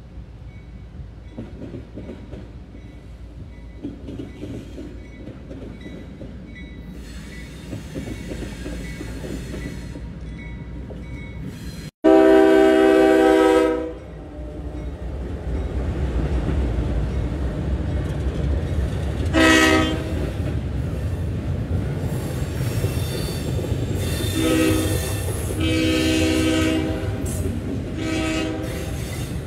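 CSX diesel-powered intermodal freight train approaching and passing close by: a rumble builds, then a long, loud locomotive horn blast about two seconds long sounds near the middle. The steady rumble and clatter of double-stack container cars rolling past follows, with several shorter horn blasts.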